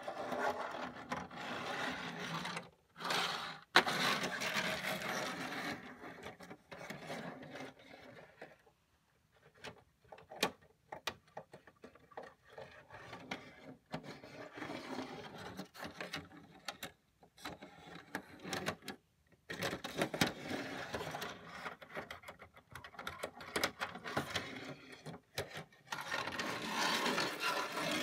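Small die-cast toy cars and trucks rolling and scraping over a plastic Hot Wheels Sto & Go playset, in irregular stretches broken by sharp clicks and knocks as they are set down and pushed around.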